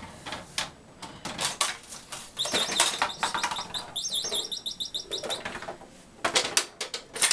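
Homemade chain-reaction contraption of plastic toys running: a string of sharp plastic clicks and knocks, with a fast, high chirping rattle from about two and a half seconds in to about five seconds.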